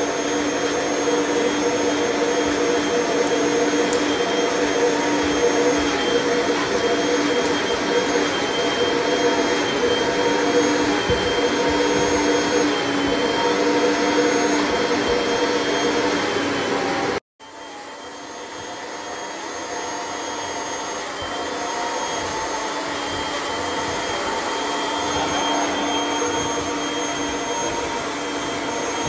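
Canister vacuum cleaner running steadily as its handheld upholstery nozzle is drawn over a fabric sofa, a loud, even whine. About two-thirds of the way through the sound cuts out abruptly, then comes back quieter and builds up again over several seconds.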